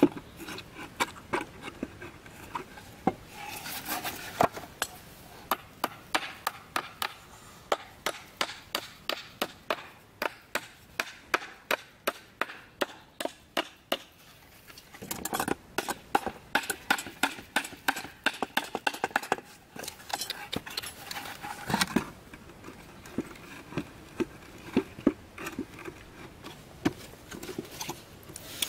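Hammer driving nails into wooden boards: quick, even strokes about two to three a second, in runs broken by short pauses.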